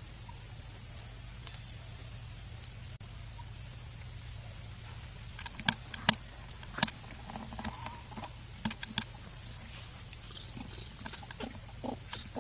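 Steady low hum at first, then from about halfway a series of sharp clicks and knocks, with a few short animal squeaks between them.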